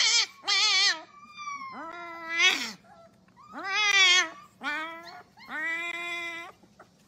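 Husky-type puppy howling in a string of about six short calls with wavering pitch, several sliding upward.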